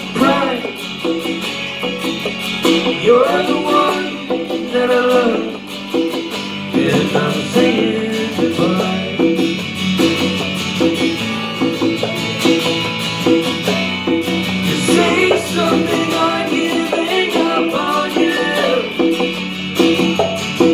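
Live acoustic guitar being strummed while a man sings into the microphone, with conga drums played by hand alongside.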